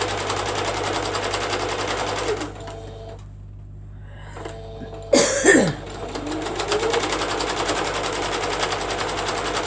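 Sewing machine stitching quickly through a quilt, stopping about two and a half seconds in. A brief loud noise comes about five seconds in, then the machine starts again and speeds up to a steady run.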